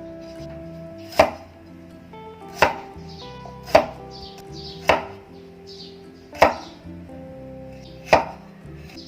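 A knife chopping on a cutting board: six single, sharp strikes, unevenly spaced about a second or more apart.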